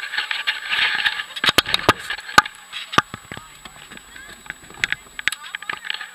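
Camera handling noise: a run of sharp knocks, clicks and rubbing on the microphone as the camera is moved about, over a rush of wind and water that thins out after about a second.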